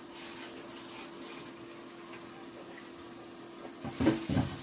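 Flour being pushed through a fine wire-mesh sieve with a spatula, giving a soft, steady scraping and rasping. About four seconds in there are a few louder knocks.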